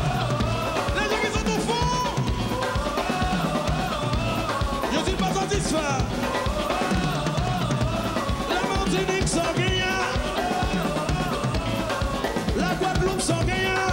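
A Haitian kompa band playing live: a steady drum-kit groove with bass and keyboard lines.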